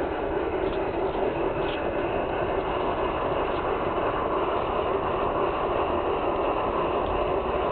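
LGB garden-railway train hauled by a Mikado steam locomotive model, running along the track. A steady rolling noise of its wheels on the rails.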